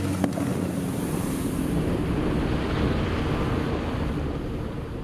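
Jet boat running at speed on a river: a steady engine drone under the rush of water and wind, easing off a little near the end.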